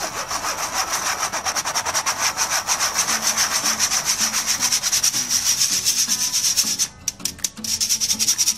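Wire whisk scraping round inside a stainless steel mesh sieve, working powdery dry ingredients through the mesh: fast, even scratching strokes, several a second. It pauses briefly about seven seconds in, then starts again.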